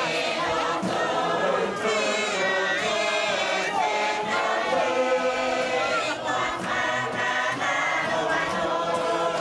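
A large group of Tuvaluan singers chanting a fatele together, many voices in unison and harmony.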